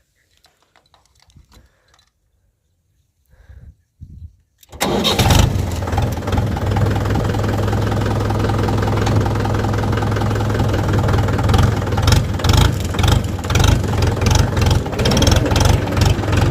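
Tractor diesel engine with a modified silencer starting abruptly about five seconds in, then running with a deep, steady note that pulses unevenly near the end. A few faint knocks come before the start.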